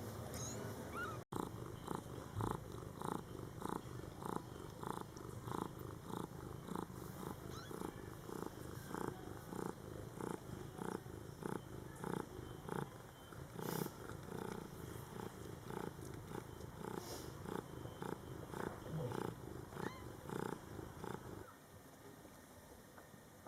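A cat purring close by, a steady, even pulsing at about two to three beats a second, which stops abruptly near the end.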